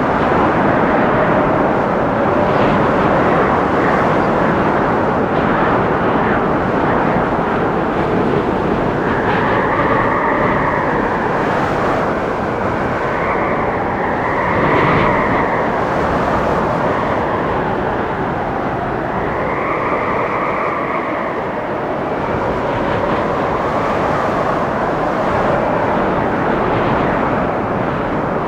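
Storm wind blowing through forest trees: a steady roar, with gusts that several times swell into a howling whistle that rises and falls.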